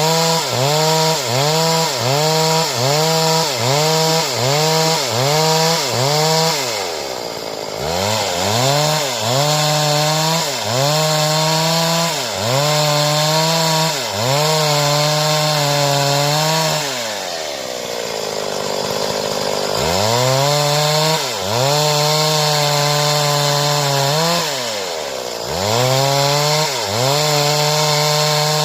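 Stihl two-stroke chainsaw cutting wood, its engine under load dipping and recovering in a quick regular rhythm. It drops back toward idle three times, longest about two-thirds of the way through, then revs up again.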